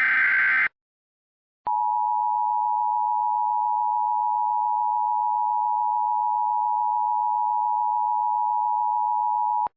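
The tail of an Emergency Alert System SAME header data burst, then after a brief silence the EAS two-tone attention signal (853 and 960 Hz together) sounding steadily for about eight seconds and cutting off sharply. It marks the start of an emergency alert, just before the spoken message.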